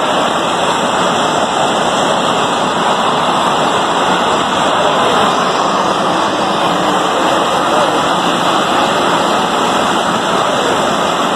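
Steam escaping from a sugar mill's ruptured steam line: a loud, steady hiss that holds at one level.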